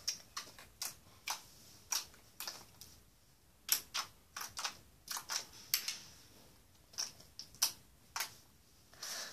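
Homemade slime being kneaded and pressed by hand, giving irregular small sticky clicks and pops, about two a second.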